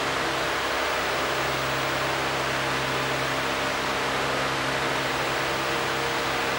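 Electric pedestal fan running: a steady whoosh of air with an even low motor hum.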